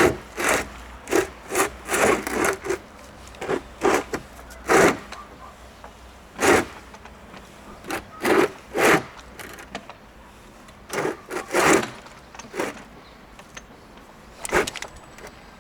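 Rope rasping through a rope access descender in short, irregular bursts as the worker lowers himself on the line.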